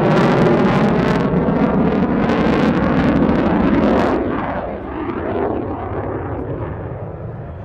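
Jet noise of an F-16 Fighting Falcon flying a display. It is loud with a high hiss until about four seconds in, when the hiss cuts off sharply. The noise then fades with a sweeping whoosh as the jet moves off.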